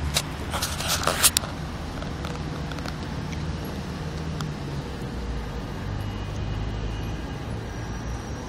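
Steady low hum of a vehicle engine or road traffic. A few sharp rustling clicks come about a second in.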